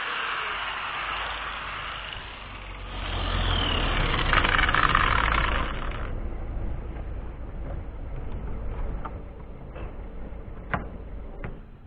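A passing road vehicle: a low rumble swells over a few seconds and fades away. A few light clicks follow near the end.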